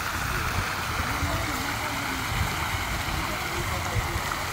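Fountain jets splashing steadily into a stone basin, with faint voices of people around and a low rumble underneath.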